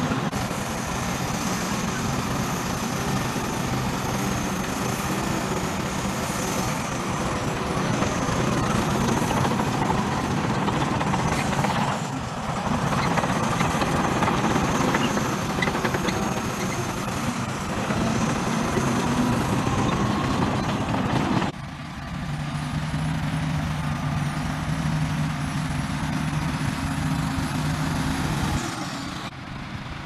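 Crawler bulldozer's diesel engine running under load as it pushes earth with its blade. About two-thirds of the way through, the sound changes abruptly to a steadier engine drone with a held low tone.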